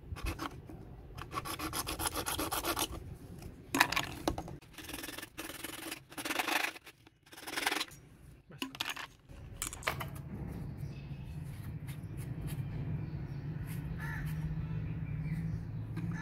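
Hand-held hacksaw blade sawing through PVC pipe in runs of rasping back-and-forth strokes that stop about eight seconds in. From about ten seconds a steady low hum takes over.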